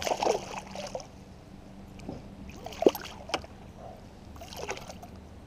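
A hooked smallmouth bass thrashing and splashing at the water's surface beside a kayak: a burst of splashing at the start, two sharp knocks around the middle, and another short splash later on.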